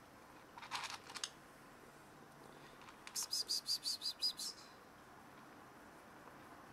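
A cricket chirping in short runs of quick, high, even pulses, about six a second, with a brief burst of chirps about a second in.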